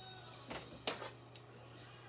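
Two brief light knocks, about half a second and just under a second in, over faint background music and a steady low hum.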